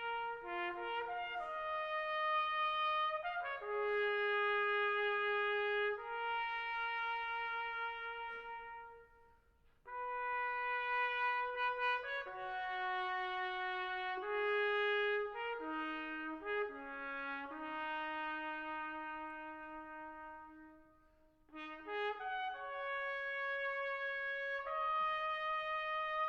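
A solo trumpet playing a slow melody, one held note at a time, in three phrases with short pauses between them.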